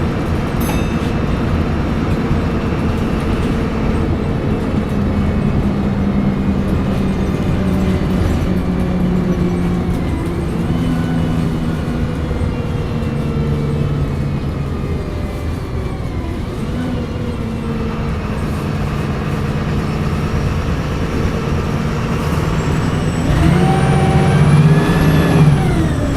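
Diesel engine of a VDL SB200 single-deck bus running under way, with its turbocharger whining; the pitch climbs twice midway. Near the end the engine pulls harder and grows louder, and a high turbo whine rises sharply, then drops away.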